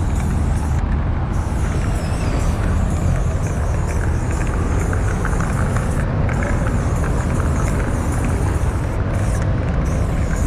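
Aerosol spray-paint can hissing in long strokes against a wall, cutting out briefly about a second in, around six seconds and again near the end, over a steady low rumble.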